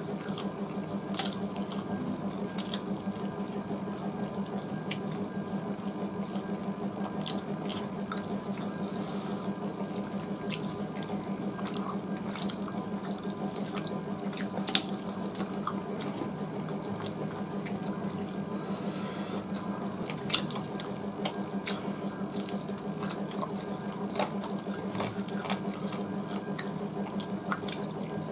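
Hand-eating from steel plates: small scattered clicks and smacks of fingers, food and chewing over a steady low hum and hiss.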